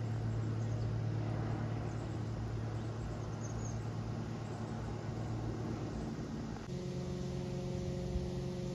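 Single-engine light propeller plane droning steadily as it flies overhead. About two-thirds of the way in, the sound changes abruptly to a steadier engine hum with several clear pitched tones.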